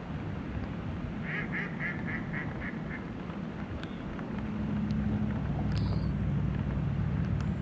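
A duck quacking a quick run of about seven quacks, about four a second, over the steady rush of river water and wind. About halfway through, a low engine drone swells in and becomes the loudest sound.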